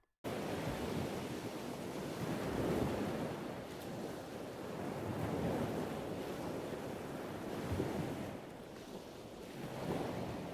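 Steady rush of wind and water with wind buffeting the microphone, swelling and easing every two to three seconds.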